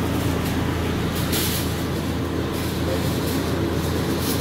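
Steady low mechanical hum and rumble of kitchen machinery, with a brief higher hiss about a second and a half in.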